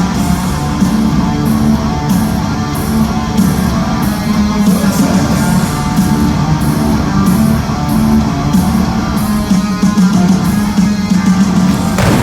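Live hard-rock band playing an instrumental passage with distorted electric guitars and a steady drum beat. It ends on a final hit just before the end, after which the level drops.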